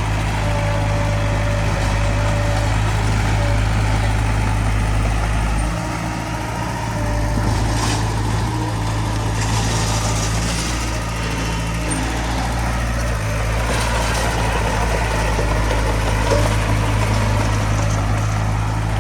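Diesel engine of heavy earthmoving machinery running steadily under load, with a deep hum that eases briefly about six seconds in.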